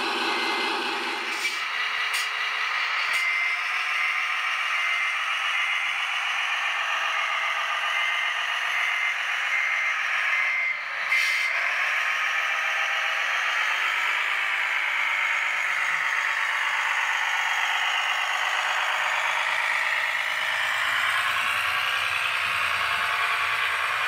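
Radio-controlled 8x4 concrete mixer truck driving, its motor and drivetrain running steadily, with a reversing beeper sounding in a steady on-off rhythm from about a second and a half in until about eleven seconds in.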